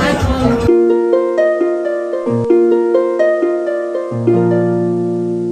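Background music: a busy dance track cuts off under a second in, giving way to a melody of single plucked, harp-like notes that ring and fade, with a low bass note coming in about four seconds in.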